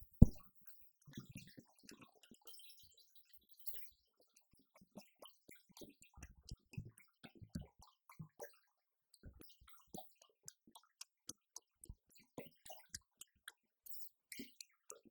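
Drumsticks tapping on electronic drum pads: irregular light clicks and knocks, one hard strike right at the start, then a steadier run of quick ticks in the second half.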